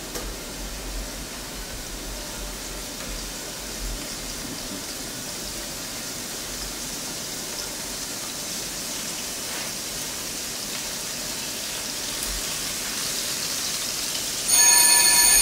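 Rockfish fillets frying in olive oil in a pan over a gas burner: a steady sizzling hiss that grows slowly louder as more fillets go in. About a second before the end a loud steady tone with several pitches starts suddenly and is the loudest sound.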